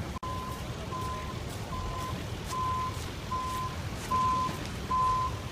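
Truck's backup alarm beeping at an even pace, a little over one beep a second, louder near the end, over a low engine rumble.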